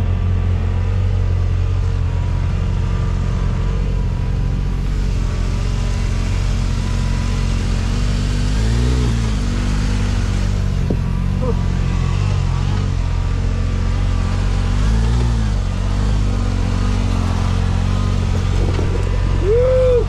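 Can-Am Maverick R side-by-side's engine running steadily at low revs as it drives down the trail, with two short rises in revs about nine and fifteen seconds in.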